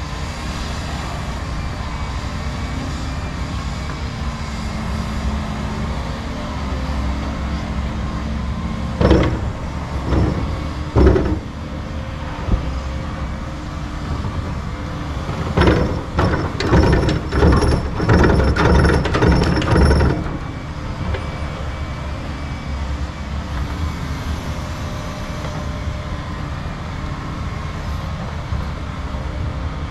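Distant excavator diesel engines running with a steady low drone. Two sharp knocks come about nine and eleven seconds in, then a quick run of clanks for about five seconds, from the machines digging and handling soil with their buckets.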